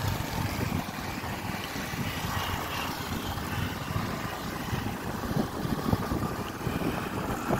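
Motorcycle on the move: engine and road noise under wind buffeting the microphone.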